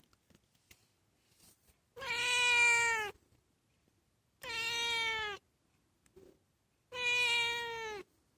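A domestic cat meowing three times, each a long drawn-out call of about a second with the pitch sagging slightly at the end, spaced about two seconds apart.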